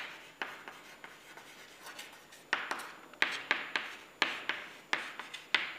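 White chalk writing on a chalkboard: a run of short scratchy strokes and taps, sparse at first and busier from about halfway through.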